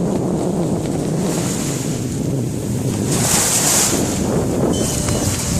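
Wind buffeting the microphone: a steady low rumble, with two surges of hiss, about three seconds in and near the end.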